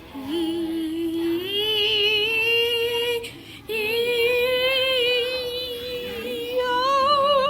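A high voice singing long held notes with vibrato, stepping up in pitch in the first second and a half, with a short break about three seconds in.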